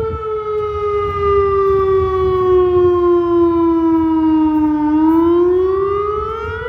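Federal Signal Modulator outdoor warning siren sounding a wail during its routine scheduled test. The tone falls slowly for about five seconds, then turns and starts to rise again near the end.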